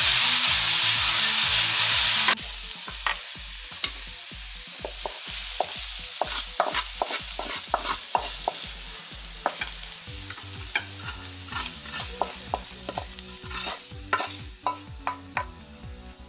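Shredded potatoes and dried chilies sizzling loudly in hot oil in a nonstick wok; the sizzle cuts off abruptly about two seconds in. After that a wooden spatula scrapes and taps against the pan many times as the potatoes are stirred and scooped out.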